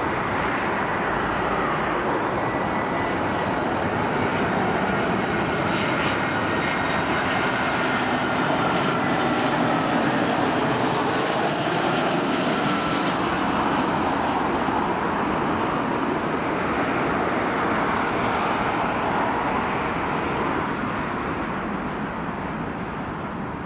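Airbus A320-214 on final approach, its two CFM56 turbofan engines at approach thrust making a steady jet noise with a faint whine that slowly falls in pitch as it passes. The noise is loudest about halfway through and fades near the end as the airliner comes down onto the runway.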